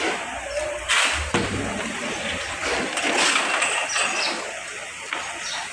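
Paddy seedling tray sowing machine running, with soil pouring from its hopper onto plastic seedling trays moving on the conveyor, and a sharp clatter of plastic trays about a second in.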